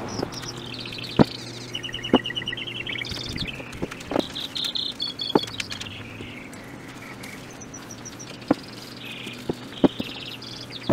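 Small birds chirping and giving rapid trills in the background. Over them come a handful of sharp clicks and knocks from PVC fittings and a cement can being handled on a wooden workbench. The clicks are the loudest sounds.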